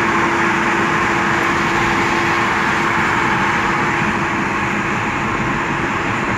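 Steady road and engine noise of a car cruising on a highway, heard from inside the cabin, with a thin steady hum that fades out near the end.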